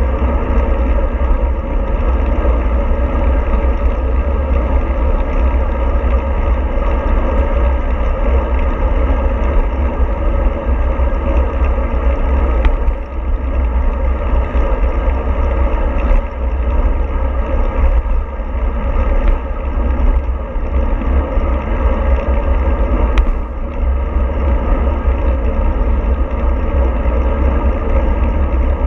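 Steady vehicle travel noise: a heavy low rumble with a constant rushing haze over it, and a few faint clicks.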